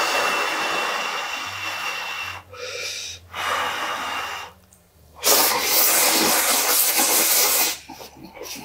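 Noodle slurping: spicy Korean instant ramen drawn in through the lips in three long slurps, the last and loudest about five seconds in, followed by short irregular mouth sounds near the end.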